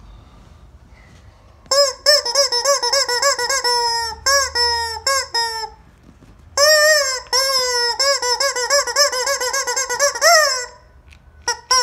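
Squeaky rubber chicken toy squeezed over and over. About two seconds in comes a quick run of short, high squeaks; after a brief pause come longer drawn-out squawks that waver in pitch, then a few short squeaks near the end.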